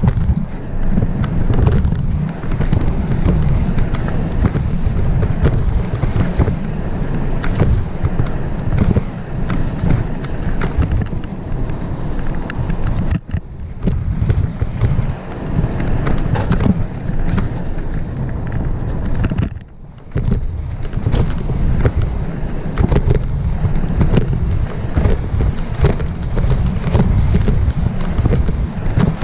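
Full-suspension mountain bike ridden fast down a dirt trail, heard from a helmet-mounted camera: heavy wind buffeting on the microphone over tyre noise, with frequent clatters and knocks as the bike rattles over bumps. The noise dips briefly twice, about a third of the way in and again about two-thirds in.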